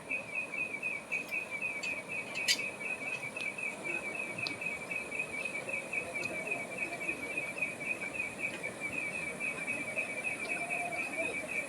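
An insect, cricket-like, chirping steadily in rapid, even pulses at one high pitch, over a faint background hiss. A single sharp click about two and a half seconds in.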